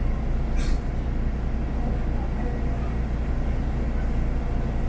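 Steady low rumble of an airport apron shuttle bus driving, heard from inside the bus, with a brief hiss about half a second in.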